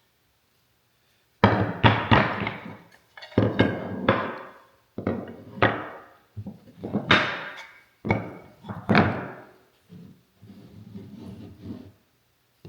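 Hardwood strips clattering and knocking as they are picked up and set down on a workbench, in several quick clusters of clacks with a short woody ring, quieter near the end.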